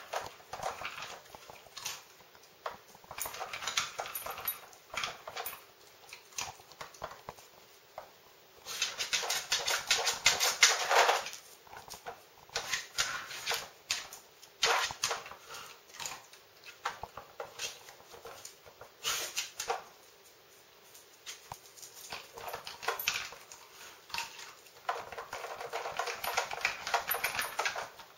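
Rapid plastic clicking and rattling as a dog noses and paws at the drawers of a Nina Ottosson Dog Casino puzzle to get at treats. The clicks come in irregular bursts, busiest about a third of the way in and again near the end.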